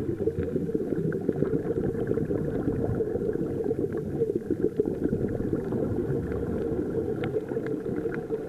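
Underwater sound picked up through a camera's waterproof housing: a dense, muffled bubbling and crackling.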